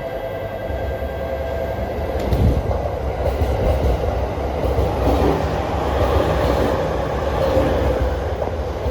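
E231 series 1000 subseries commuter electric train pulling into the platform, with rumbling wheel-and-rail running noise that grows louder from about two and a half seconds in.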